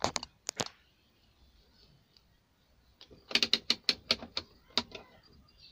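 Clicking of a handheld digital multimeter's rotary range selector turned through its detents to the 200 V range: a few clicks at the start, then a quick run of about eight clicks in the middle.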